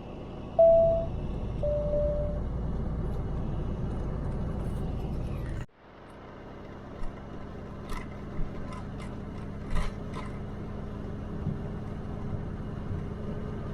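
Steady road and engine noise inside the cab of a Ford F-250 Super Duty pickup while driving. Near the start come two short beeping tones, the second lower than the first. About halfway the sound cuts abruptly and resumes as a steadier low hum with a few scattered clicks.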